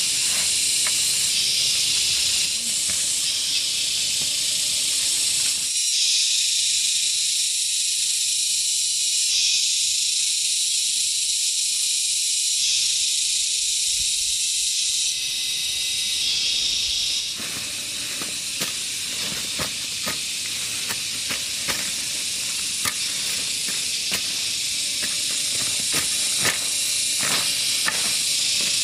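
A loud, high-pitched insect chorus making a steady hiss that swells and eases a few times. From a little past halfway, a run of sharp clicks and snaps sounds over it.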